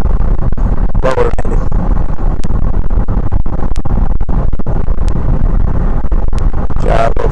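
Car driving, heard from inside the cabin: a steady, loud low rumble of road and engine noise.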